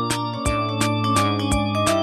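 Background music: a cheerful keyboard tune with held notes and a steady beat.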